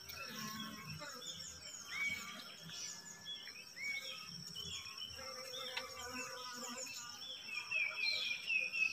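Small birds chirping and twittering with short rising and falling calls, over a steady high insect drone. Underneath is a low hum from the mass of Asian honey bees (Apis cerana) on the comb lifted out of the hive.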